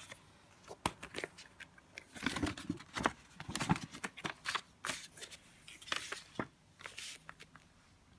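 A plastic CD case being handled and opened: an irregular run of sharp clicks and short rustles, busiest in the middle.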